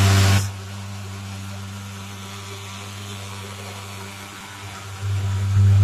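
Portable thermal fogging machine, a pulse-jet engine, running with a steady low buzzing drone. It is loud in the first half second, drops to a lower level, and is loud again from about five seconds in.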